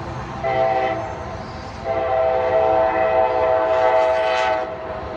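Locomotive air horn sounding at a grade crossing: a short blast of about a second, then a long blast of nearly three seconds that cuts off near the end.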